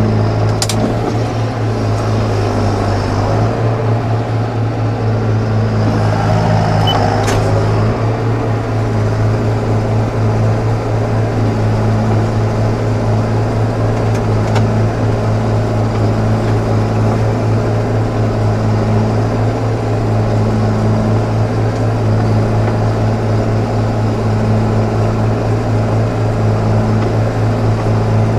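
John Deere tractor's diesel engine running at a steady speed under load while spreading fertilizer, heard from inside the cab as a constant low drone. Two brief clicks occur in the first few seconds.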